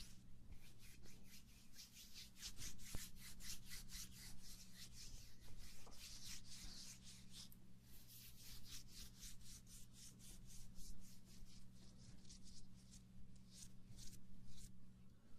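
Quick, scratchy rubbing strokes, about five a second and evenly paced, with a faint steady low hum underneath.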